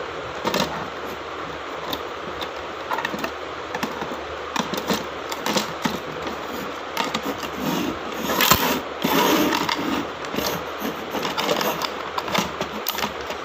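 Plastic toy track pieces being handled and fitted together: irregular clicks, rattles and scrapes of hard plastic, with one sharper knock about eight and a half seconds in.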